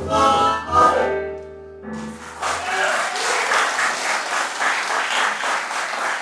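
A band's song ends on a last held chord, and about two seconds in the audience breaks into applause that carries on steadily.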